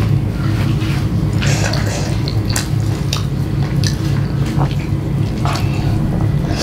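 Close-miked wet chewing and mouth smacks with scattered sharp clicks, as pieces of oily pork pickle are picked from a plastic tub and eaten, over a steady low hum.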